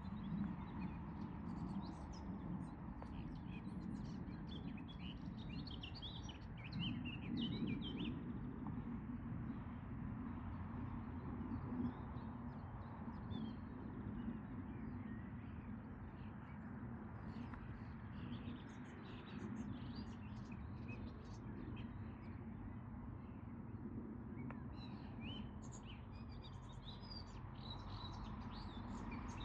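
Outdoor birdsong: small birds chirping in scattered bursts over a steady low background rumble.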